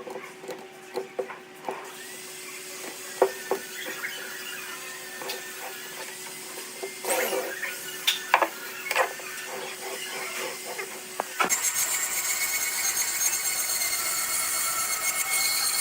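Woodworking tool sounds: scattered knocks and clicks over a steady hum, then about eleven seconds in a power tool starts working the wood with a loud, steady hiss.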